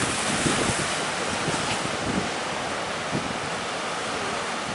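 Sea surf washing with strong wind gusting and buffeting the microphone in low, uneven rumbles.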